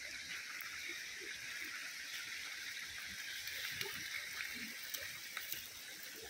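Stream water running steadily, with a few sharp crackles from a wood fire in the second half.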